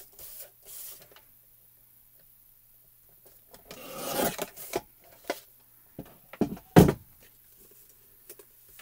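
Paper trimmer's blade sliding along its rail, slicing through cardstock in one scraping stroke about four seconds in. It is followed by a few sharp knocks and taps, the loudest about seven seconds in, with a couple of brief rustles of the panel near the start.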